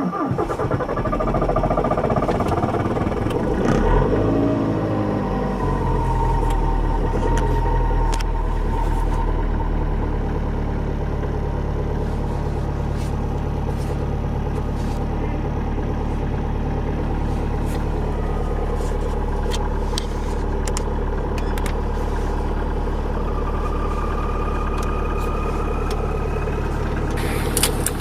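Diesel engine catching on a cold start in deep frost. Its revs fall over the first five seconds, then it settles into a steady idle. Near the end it cuts off suddenly into a brief louder sound.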